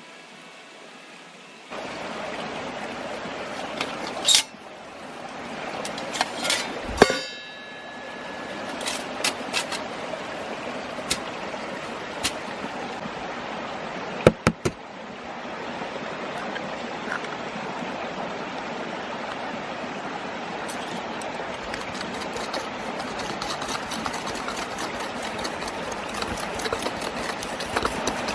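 A mountain stream runs steadily, starting about two seconds in. Over it come a few sharp knocks and clinks, and one near the middle rings on briefly like metal.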